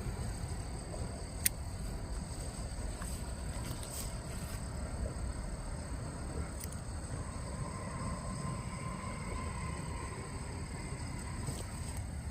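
Outdoor waterside ambience: a steady high chirring of insects over a low rumble, with one sharp click about a second and a half in.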